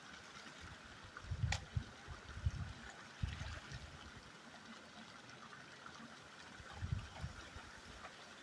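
River water flowing and trickling steadily, with a sharp click about one and a half seconds in and a few short low rumbles.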